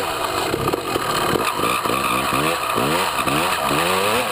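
Dirt bike engine heard close up from a camera mounted on the bike, its pitch rising and falling over and over, about two or three swells a second, as the rider works the throttle over the track, with a steady rush of wind and tyre noise underneath.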